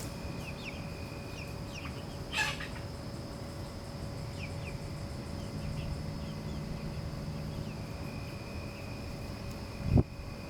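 Backyard chickens making scattered short, soft peeps and clucks over a steady high insect-like drone, with one brief louder call a couple of seconds in and a short loud low sound near the end.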